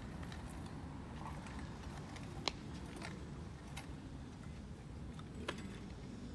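Outdoor ball-field ambience: a steady low rumble with a handful of sharp knocks, the loudest about two and a half seconds in and another about five and a half seconds in.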